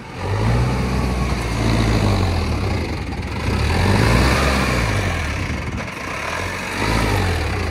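Heavy diesel engine revving hard under load, its pitch rising and falling several times as the machine strains to pull through mud.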